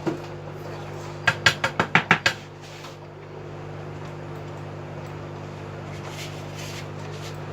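A quick run of about seven light metallic clicks and taps as a micro soldering iron is picked up and handled on the repair bench, over a steady electrical hum from the bench equipment.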